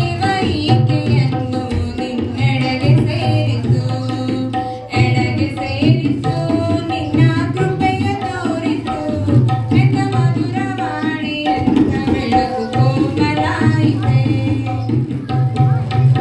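Live Indian devotional song: a tabla drum keeps a steady rhythm under a woman's sung melody.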